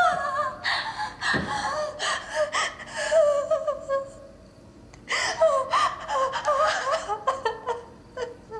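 A person gasping and breathing hard, with short wavering voiced cries. It comes in two spells with a quieter lull about four seconds in.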